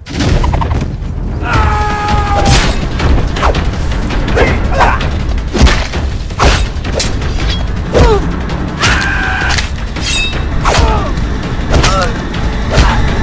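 Cartoon fight soundtrack: loud action music with a heavy low end, cut through by many sharp hits and booms, with short pitched cries several times.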